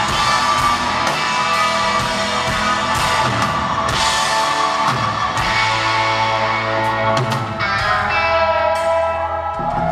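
Live rock band playing an instrumental passage: electric guitars holding sustained, ringing notes over a drum kit, with cymbal hits about twice a second.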